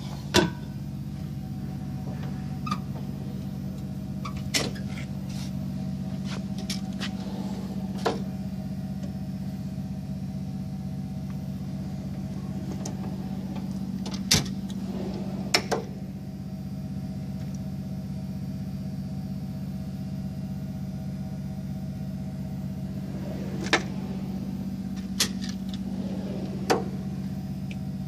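A steady low hum throughout, with about eight sharp clicks and knocks scattered through it from a Snap-on KRL1003 toolbox being handled: drawers slid open and shut, and plastic tool cases and trays moved about inside.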